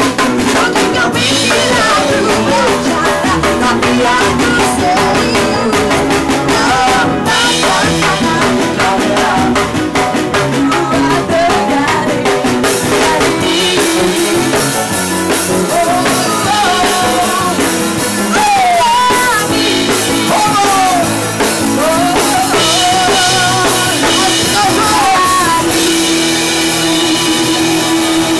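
A live band with drum kit plays a dangdut arrangement while a woman sings into a microphone, her voice sliding and bending around the notes over a steady, busy beat.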